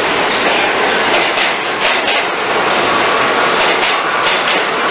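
New York City subway train running alongside an underground station platform: a steady loud rumble of the moving cars, with scattered sharp clicks as the wheels clatter over the rails.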